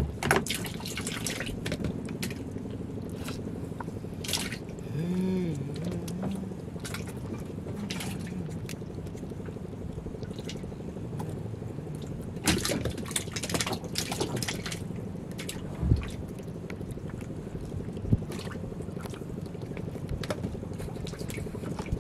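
Water lapping and dripping at the side of a small wooden boat as a sardine handline is hauled in by hand, with scattered knocks and splashes over a faint steady hum.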